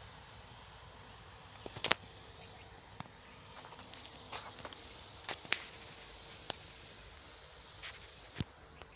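A scattering of sharp clicks and rustles, the loudest about two seconds in, over a steady faint outdoor hiss.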